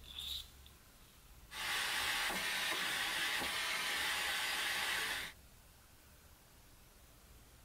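Small handheld gas torch burning with a steady hiss for about four seconds, then cutting off abruptly, its flame shrinking heat-shrink tubing onto an M3 bolt. A short click comes about a second before the flame starts.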